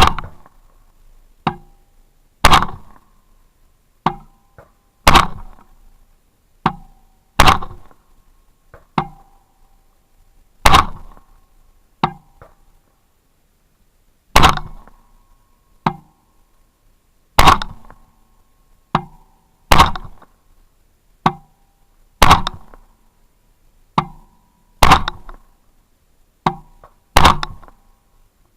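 AR-15 rifle firing slow, deliberate single shots, about a dozen loud reports two to three seconds apart, each ringing out briefly, with fainter shots between them.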